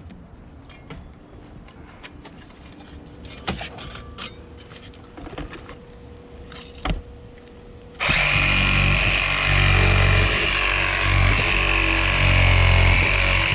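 A few light clicks and knocks, then about eight seconds in a power tool starts suddenly and runs loudly and steadily, with a high whine over a low drone.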